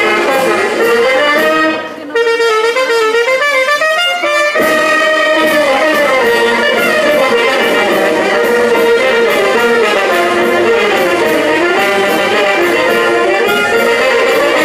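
Brass band music for the dance: a lively melody on horns over a steady beat. About two seconds in, the music thins for a couple of seconds, its low notes gone, then comes back in full.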